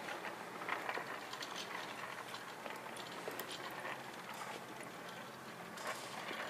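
Low room ambience with scattered soft clicks and taps at uneven intervals.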